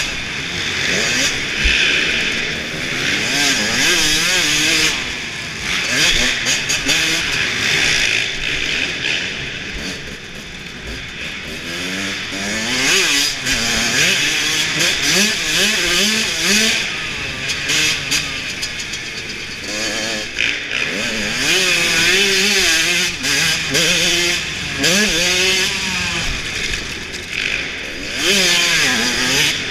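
Dirt bike engine heard from on board, revving up and down again and again as the throttle is opened and shut through the jumps and turns, over a steady hiss.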